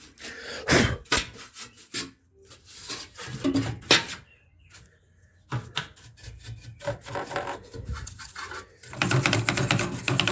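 A brush scrubbing dust and gunk off the inside of a microwave oven near its cooling fan, in short, irregular strokes with a brief pause about halfway and quicker strokes near the end.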